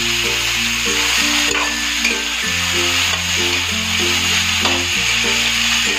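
Onion, tomato, green chilli and cashews sizzling in hot oil in a metal kadhai, with background music of slow held notes underneath.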